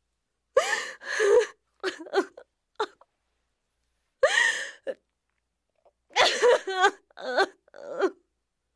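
A woman's voice giving short whimpers and gasping cries of distress in about six bursts, with silent gaps between them.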